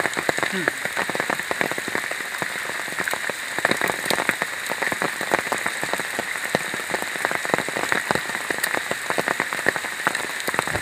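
Steady rain pattering, a dense spatter of drops close to the microphone.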